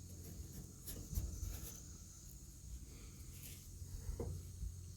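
Faint, scattered light clicks and knocks of hands handling things, over a steady low hum.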